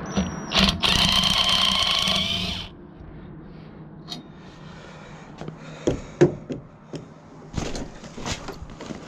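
A power drill runs steadily for about two seconds, driving screws out of the scrap, then stops; loose clicks and knocks follow as the parts are handled.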